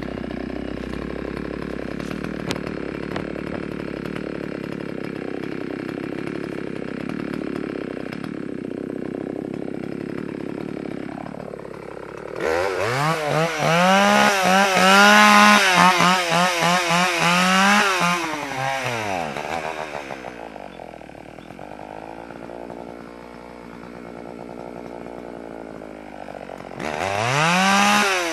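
Two-stroke chainsaw idling, then revved up sharply about halfway through and held high for several seconds before dropping back to an uneven idle, and revved again near the end. It is running on fresh gas to clear out old fuel, and its owner puts its rough running down to a dirty carburettor.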